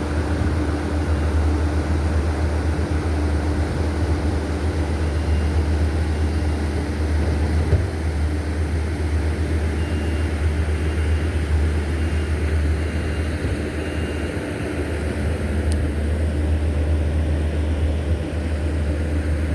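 Steady low rumble of a vehicle's engine and road noise.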